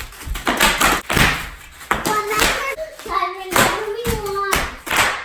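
Bubble wrap popping: a run of sharp, irregular pops and snaps, some with a dull thump as the wrap is stepped on, with children's voices in between.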